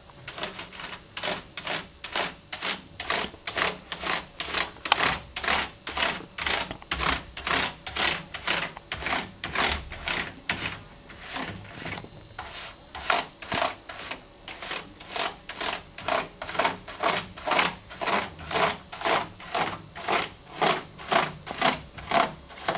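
A damp bristle computer-cleaning brush scrubbing back and forth over a computer keyboard's keys, in even strokes about two a second.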